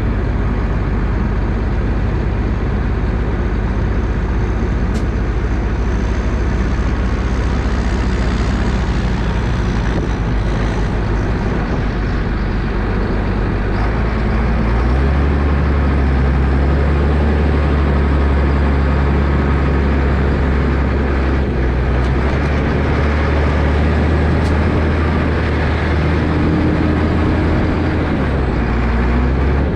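Massey Ferguson 8480 loader tractor's engine running steadily, getting louder and deeper about halfway through as it works harder.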